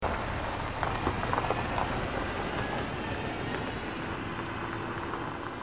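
Sound effect of a car driving past on a gravel road: a steady low rumble with scattered crackles, easing slightly toward the end.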